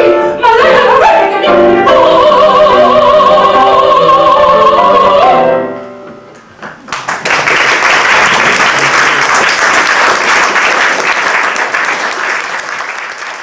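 A female operatic voice with piano finishes a song on a long held high note that stops about five seconds in. After a short pause, audience applause starts and runs on, fading near the end.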